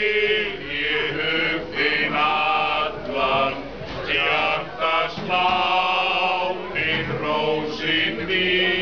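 Three men singing an Icelandic song together in unison, in slow phrases of long held notes with short breaks between them.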